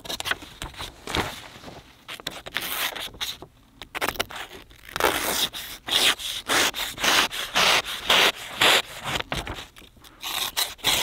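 The blade of a SOG Camping Axe slicing through a sheet of paper to test its sharpness: a string of short scraping, rustling cuts, louder and closer together in the second half.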